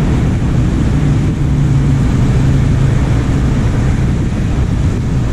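Heavy tow truck's diesel engine running steadily, a rough low rumble with a steady low hum from about a second in until about four and a half seconds.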